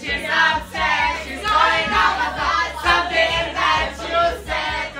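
Karaoke song playing over the room's speakers, with several people singing along together.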